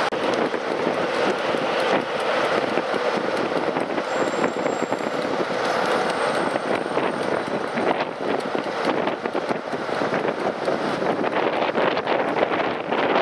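Wind buffeting the microphone: a steady, rough rushing noise over railway station background.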